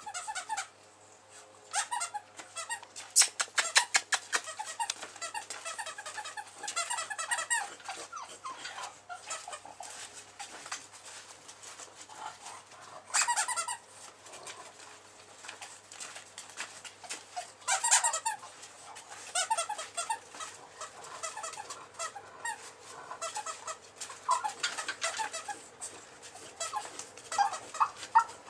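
Eight-week-old puppy snoring in its sleep: high, squeaky, wheezing breaths that come in irregular bursts, a few of them much louder than the rest.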